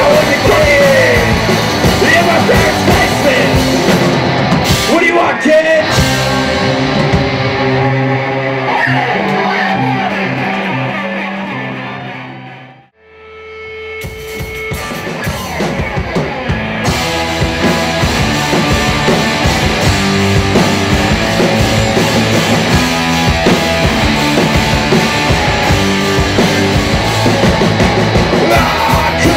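Live rock band playing loud: electric guitars, bass and drum kit, with a male lead vocal near the start. About four seconds in the cymbals drop out and held guitar chords fade almost to nothing around thirteen seconds in. The full band then builds back up, with cymbals returning a few seconds later.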